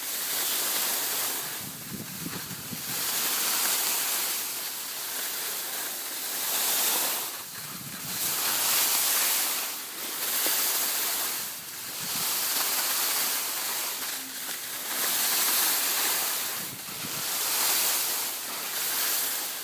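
Skis sliding and scraping over packed snow, a hiss that swells and fades every two seconds or so with each turn, with some wind rumbling on the microphone.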